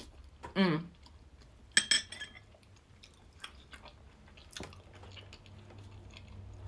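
Eating tang yuan in ginger soup from a porcelain spoon: a short hummed "mm" about half a second in, two sharp clicks of mouth or spoon near two seconds in, then soft chewing with another faint click.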